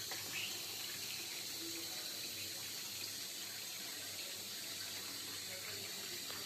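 Kitchen tap running steadily, its stream splashing onto steel pots in a stainless-steel sink.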